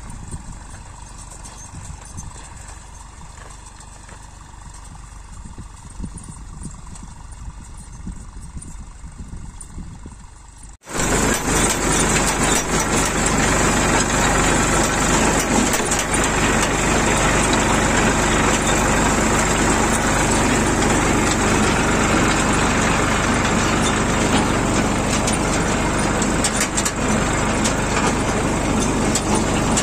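Tractor engine running steadily out in the field, fairly quiet, then, after a sudden cut about eleven seconds in, the tractor and its seed drill running loud and close while sowing mustard.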